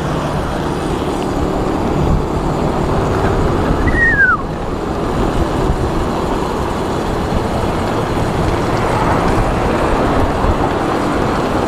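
Steady rush of wind on the microphone and tyre noise from a BMX bike rolling fast on city asphalt, with street traffic behind it. A short falling squeal about four seconds in.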